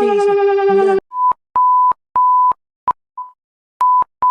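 Emergency alert alarm tones. A steady siren-like tone cuts off suddenly about a second in and gives way to a string of short, high electronic beeps at one pitch, a little over one a second, each starting and stopping with a click; two of the beeps are cut short.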